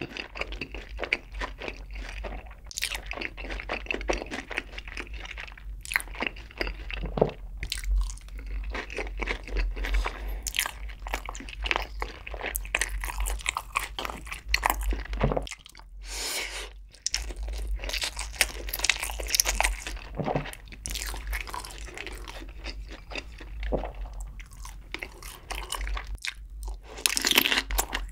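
Close-miked crunching and chewing of crispy sauced fried chicken, with sticky mouth sounds between bites. Near the end comes a louder cluster of crunches as a piece of stuffed cucumber kimchi is bitten.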